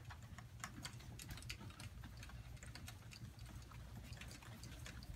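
Quiet room tone with a low steady hum and faint, irregular small clicks and taps.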